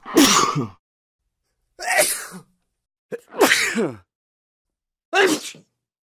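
A man sneezing four times in a row, each a short sneeze with a falling pitch, about a second and a half apart with silence between.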